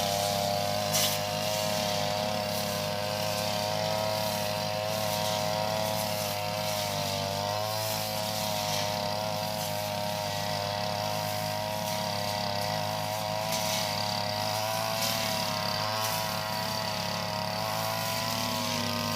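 Brush cutter engine running steadily at high speed with a long straight blade, its pitch wavering slightly as the blade works through grass.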